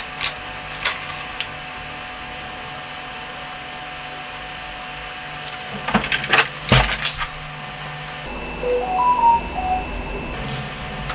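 Paper instruction booklet handled, pages rustling and turning in a few short spells. From about eight seconds in, a mobile phone rings: a short melody of clear notes that repeats.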